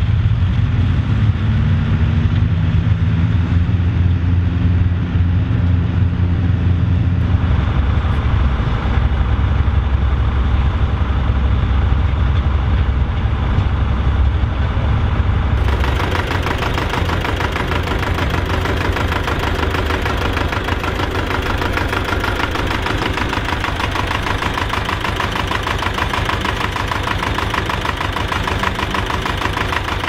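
A modern tractor's engine drones steadily while pulling a trailed beet harvester, with the harvester's machinery running. About halfway this gives way abruptly to an old vintage tractor's engine idling with a fast, even clatter.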